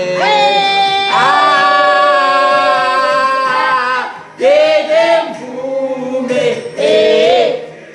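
Singing voices, holding long notes for the first few seconds, then a short break about four seconds in and shorter sung phrases after it.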